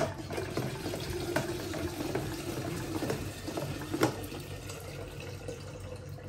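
Water running from a tap into a container, its pitch rising slightly as it fills, with a few knocks.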